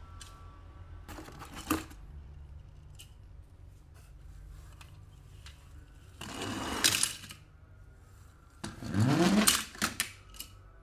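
Plastic toy cars being handled: a sharp click, then two short scraping, rattling bursts, the second and loudest with a rising whir in it, followed by a few light clicks.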